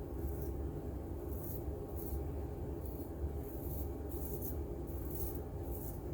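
Straight razor scraping through stubble in a run of short, scratchy strokes, about one or two a second, over a steady low hum.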